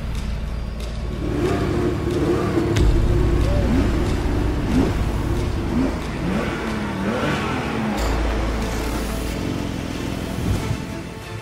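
Porsche 911 Turbo's turbocharged flat-six engine revving, its pitch climbing and falling several times, over a low steady drone. The revs ease off in the last few seconds.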